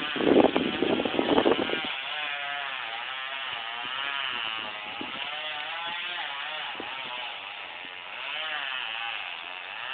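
Chainsaw engine running under load as it cuts through a tree trunk, its pitch wavering up and down as the engine bogs and picks up again. A louder burst of rough noise over the first two seconds.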